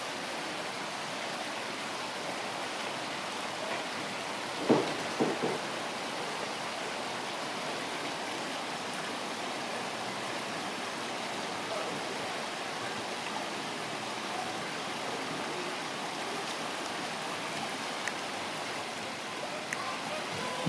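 Steady rush of running water, with a short cluster of sharp knocks about five seconds in.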